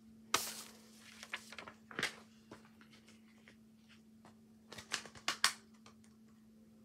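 Paper rustling and crackling as a thin card code insert is picked up and handled, in short bursts: one about a third of a second in, another about two seconds in, and a quick cluster around five seconds in. A faint steady hum runs underneath.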